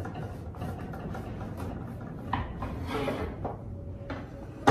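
Knife sawing back and forth through a loaf of sourdough bread on a wooden cutting board, a steady rasping with a few stronger strokes, and a sharp knock near the end.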